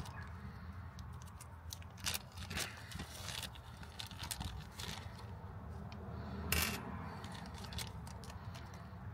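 A small clear plastic packet being crinkled and torn open by hand, with light clicks as the small brass LPG gas jets come out onto the glass hob top. The loudest rustle comes about six and a half seconds in.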